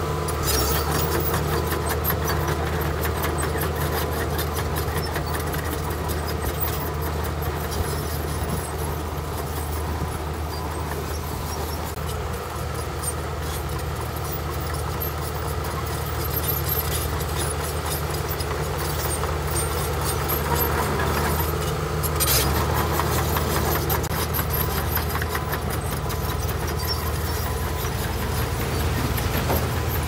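Heavy earthmoving machine's diesel engine running steadily, with a brief sharp noise about two-thirds of the way through.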